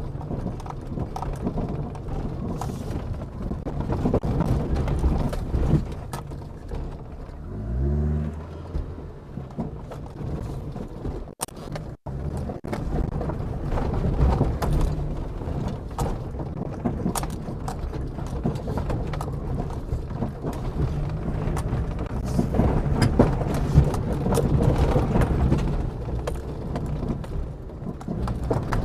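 2014 Leopaard Feiteng SUV driving slowly over rough ground, its engine running with frequent knocks and rattles from the chassis: abnormal suspension noise that the owner judges will need repairs. The engine revs up briefly about eight seconds in.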